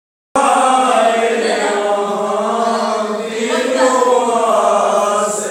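A group of voices singing a Maithili devotional bhajan together; the singing cuts in abruptly just after the start.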